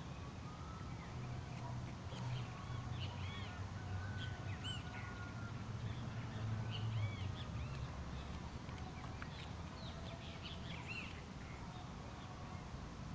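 Birds calling: many short, arched chirps scattered throughout, over a low rumble.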